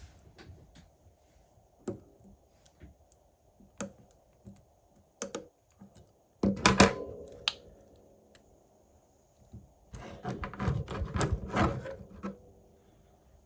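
Small hand tools and phone parts handled on a workbench: scattered light clicks and taps, a louder clatter about six seconds in that rings briefly, and a quick run of clicks and knocks near the end.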